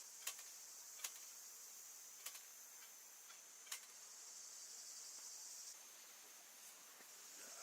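A steady, high-pitched chorus of insects, faint, with four sharp clicks spread over the first four seconds.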